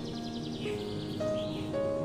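Background music of slow held notes, with birds chirping over it.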